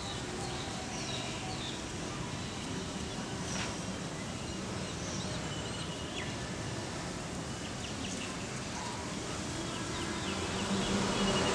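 Outdoor ambience: a steady background hiss and hum with scattered short, high bird-like chirps. A low rumble builds over the last second or two.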